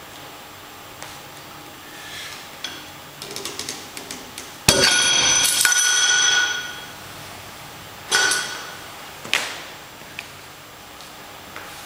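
Rolling Thunder grip handle and loaded iron weight plates: a few light rattles, then a loud metal clang about halfway through as the grip gives way and the weight drops back, ringing for nearly two seconds, followed by two shorter clanks with ringing. A failed grip lift.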